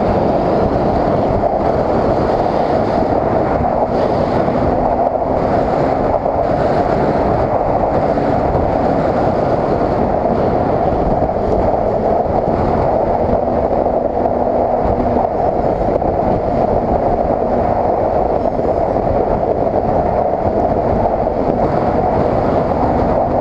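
Snowmobile running steadily at speed, heard from the rider's seat: an even, dense drone of engine and track that holds the same level throughout.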